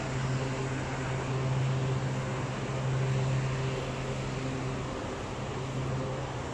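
City street ambience: a steady low machine hum, such as an idling engine or air-conditioning plant, over a constant wash of traffic noise. The hum weakens about five seconds in.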